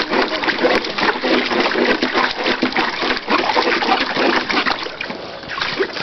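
Water splashing and sloshing in a shallow plastic wading pool, stirred by a Labrador retriever standing in it and a toddler's hand. It goes as a busy run of irregular splashes that eases briefly about five seconds in.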